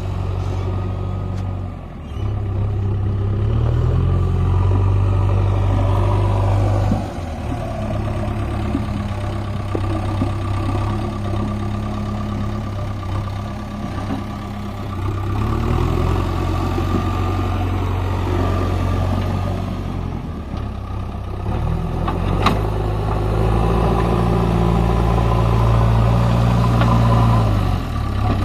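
Backhoe loader's diesel engine working under load, revving up and dropping back several times as the digging and loading goes on, with one sharp metallic knock about two-thirds of the way through.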